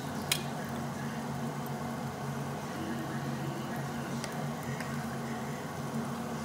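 Marinated duck meat and garlic cloves sizzling on a tabletop barbecue grill over a steady low hum, with one sharp click about a third of a second in and a few faint ticks later.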